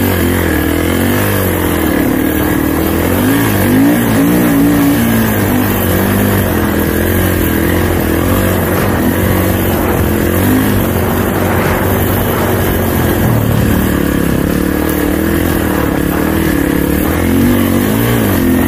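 Snowbike (a dirt bike converted to a snow track and front ski) engine running under load while riding through snow, its pitch rising and falling continually with the throttle.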